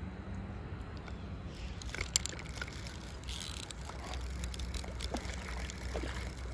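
A hooked largemouth bass splashing at the water's surface as it is reeled in on a spinning rod, with scattered clicks, a sharp tick about two seconds in and a brief splash about three and a half seconds in, over a low steady rumble.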